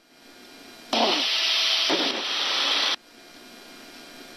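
Burst of police radio static, about two seconds of loud hiss that switches on and off abruptly as a transmission is keyed, with no words made out, over a faint steady background hiss.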